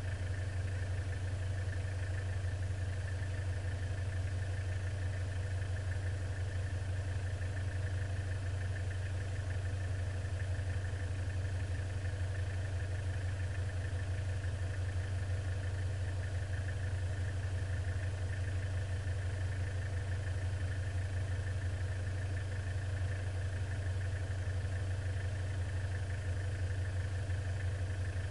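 Off-road vehicle's engine idling steadily while the vehicle stands still, heard from inside the cab.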